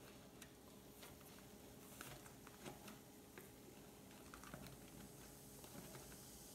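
Near silence, with a few faint small taps and rustles from the rubber balloon being handled on the neck of a plastic bottle as baking soda is tipped into the vinegar.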